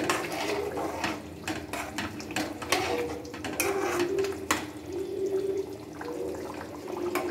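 Metal ladle stirring curry in a metal kadai. It clinks and scrapes against the pan again and again as it moves through the thin, liquid gravy.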